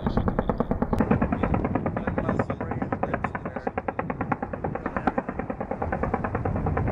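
Helicopter door gun firing a long, rapid string of shots, about ten a second, over the helicopter's rotor and engine noise.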